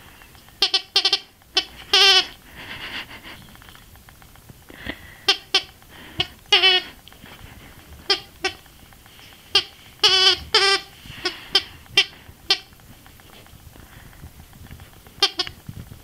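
Green plush squeaky toy being bitten by a puppy, its squeaker giving short squeaks in irregular groups, some brief and a few drawn out and wavering, with pauses of a second or more between groups.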